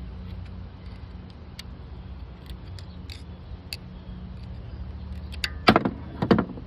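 Hand tools and metal parts clicking and clattering as a car part is worked loose, with a few faint clicks and then two louder bursts of rattling clatter near the end, over a steady low hum.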